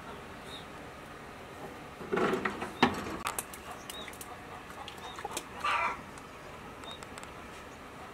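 Captive wild boar snuffling and grunting at the bars, with a low grunt about two seconds in and a few sharp clicks just after. A short, higher call follows near six seconds.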